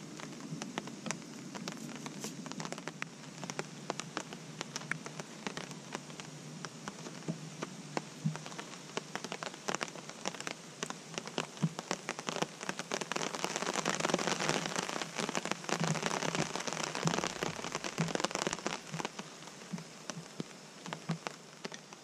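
Steady rain pattering, dense with fine drop ticks, on a tarp shelter and the forest around it, swelling louder for a few seconds past the middle.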